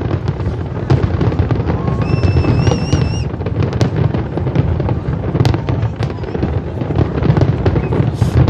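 Fireworks display going off: a dense, continuous run of cracks and bangs over a steady low rumble. A brief warbling whistle sounds about two seconds in.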